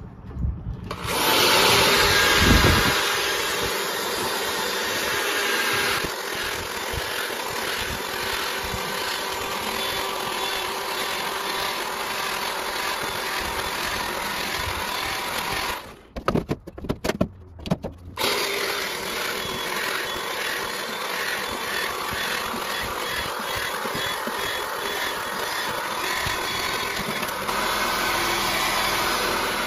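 Electric drill spinning a wire brush attachment against gas grill grates: a steady harsh whirring scrub of metal bristles on metal, starting about a second in. It stops for about two seconds past the middle, with a few knocks, then starts again.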